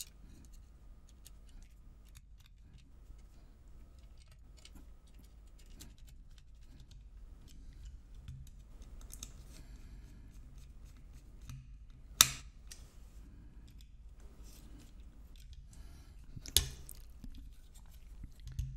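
Small screwdriver and metal case parts of a helium miner hotspot being handled and screwed back together: light scratching and small clicks, with two sharp clicks, one just past the middle and one near the end.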